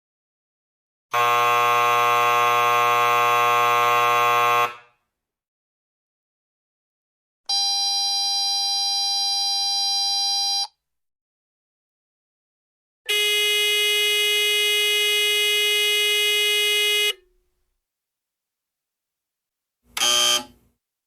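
A series of electric doorbell buzzer tones with silence between them: a harsh buzz of about three and a half seconds, then a higher steady tone of about three seconds, then a lower steady tone of about four seconds, and a short burst near the end.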